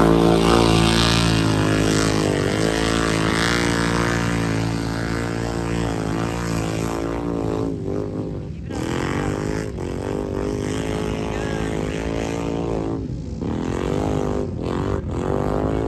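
Off-road race engines revving hard, several at once, their pitch climbing and dropping as they work. Loudest at the start, then a little lower.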